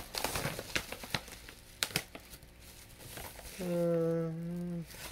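Plastic crinkling and crackling with many sharp little clicks as the toy's packaging is handled, then a person hums one steady note for about a second near the end.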